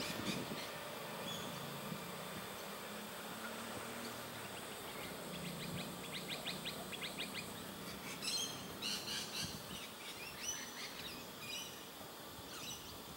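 Birds chirping and calling, with a rapid run of clicking notes about five seconds in and bright chirps between about eight and ten seconds in, over a faint low hum of cars crossing the level crossing.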